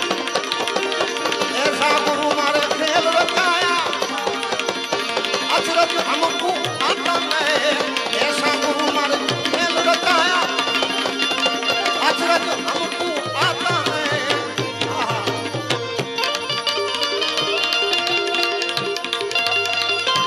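Live devotional bhajan music: tabla playing under harmonium chords and a wavering melodic lead line, with deeper bass-drum strokes coming in after about two-thirds of the way through.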